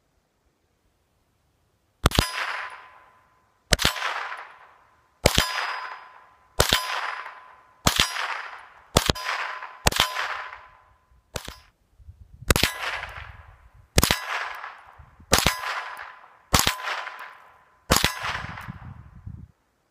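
A Ruger 10/22 semi-automatic .22 LR rifle fired about a dozen times at a steady pace of roughly one shot every second and a half, each crack followed by about a second of ringing clang from the AR500 steel targets being hit. One shot about two-thirds of the way through is noticeably weaker.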